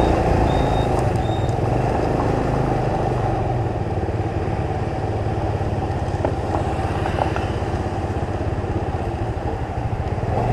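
Motorbike engine running steadily amid street traffic noise, with a few short high beeps about half a second apart in the first second or so.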